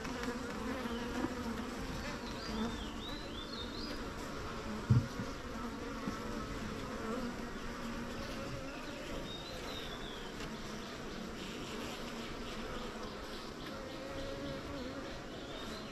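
Honeybee colony in an opened wooden frame hive buzzing: a steady, even hum from the disturbed bees. There is a single knock about five seconds in.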